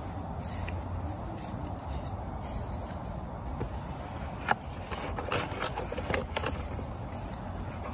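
Cardboard burning in a stainless steel double-wall biomass camping stove: a steady low rushing with scattered crackles. A sharp snap comes about four and a half seconds in, followed by a cluster of crackles and cardboard rustling as the fuel box is handled.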